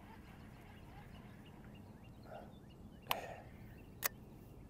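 Quiet background with faint scattered bird chirps, then two sharp clicks about a second apart near the end, from the baitcasting rod and reel being handled as it is lifted.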